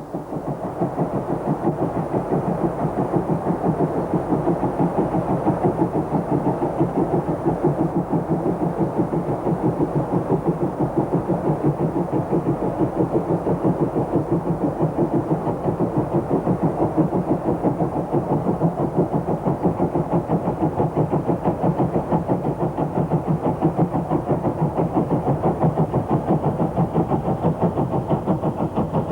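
Exhaust of a North British Railway J36 0-6-0 steam locomotive working a train, chuffing in a fast, steady, even rhythm of roughly two to three beats a second.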